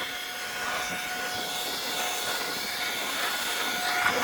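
Air duster blowing: a steady rush of air with a high, even whine over it.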